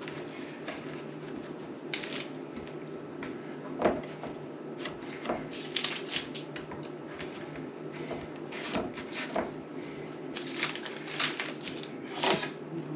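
A clear plastic food wrapper crinkling in irregular bursts while cookie dough is handled and pressed into a metal muffin tin. Light taps on the counter and tin, with one louder knock about four seconds in, over a steady low hum.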